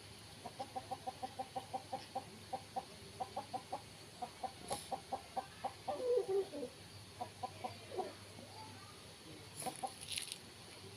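A bird giving a rapid series of short clucking calls, about six a second, in runs with brief pauses, with a louder falling call about midway.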